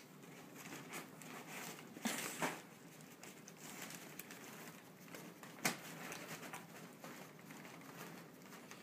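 A small dog, a Papillon, rustling and scratching at wrapped Christmas presents: faint scattered rustles and taps, a louder rustle about two seconds in and one sharp tap a little past halfway.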